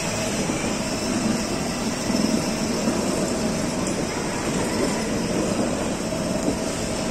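A battery-powered ride-on toy car running: its electric drive motors humming and its plastic wheels rolling on a hard polished floor, against a steady background hubbub of a busy indoor mall.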